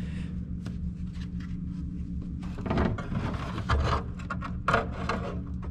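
Cut-out steel floor pan being shuffled into a car's spare-tire well by hand: irregular scraping, rubbing and light knocks of sheet metal, busier from about halfway through, over a steady low hum.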